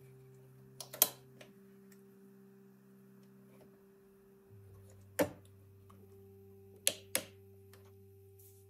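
Sharp clicks from handling the test leads on the components: a double click about a second in, one around five seconds, and two close together near seven seconds. Faint sustained background music notes run underneath.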